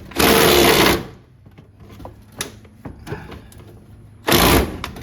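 Ratchet wrench working a stubborn fender bolt on a Jeep Wrangler TJ: a short burst of fast ratcheting at the start and another near the end, with faint clicks between.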